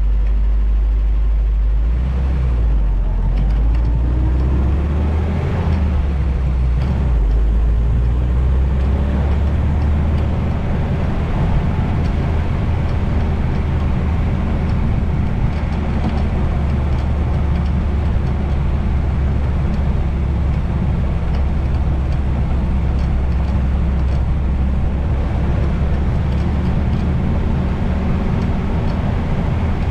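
Vintage Willys Jeep engine running on the move, picking up speed a few seconds in and then cruising steadily. A heavy low wind rumble on the open-top GoPro's microphone runs under it, muffled by a foam wind buffer.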